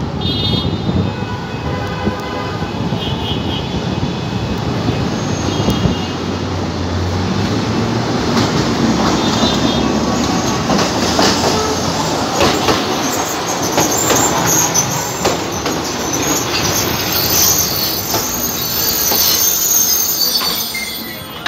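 Electric tram approaching and passing close by, its steel wheels rumbling and clicking over the rails, rising to a high wheel squeal in the last few seconds as it pulls alongside.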